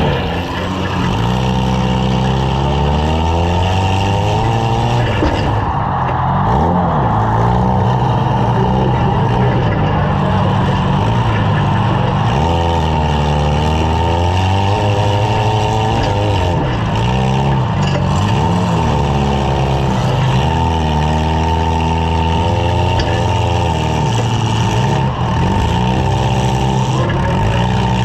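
Several small car engines revving and running at shifting speeds together, their pitches rising and falling over and over, as compact cars drive in a demolition derby heat.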